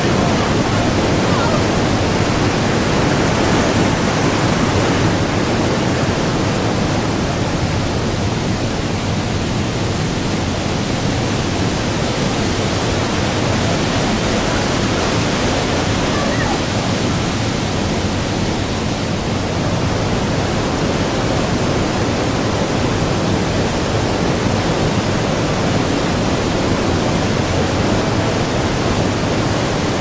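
Steady, loud rush of falling water from the Manavgat Waterfall: an even noise without a break.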